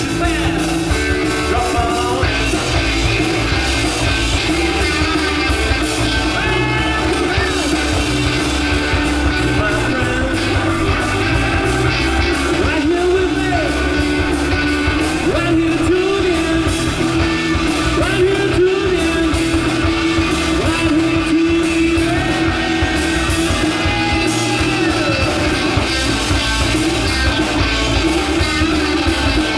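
Rock music with a singing voice over guitar and a steady beat.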